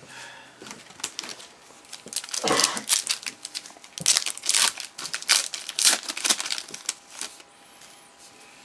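Baseball card pack wrapper being handled and crinkled: a run of sharp crackling rustles from about two to seven seconds in.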